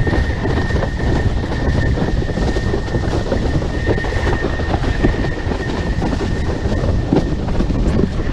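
High steady whistle from a Starboard iSonic 145 windsurf board planing at about 20 knots, holding one pitch and fading out near the end, over loud rushing wind and water noise.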